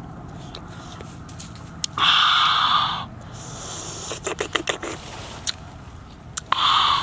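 Close-miked eating of crisp raw gooseberries: a loud crunching bite about two seconds in lasting about a second, a quick run of crunchy chewing clicks around four and a half seconds, and another loud crunch near the end.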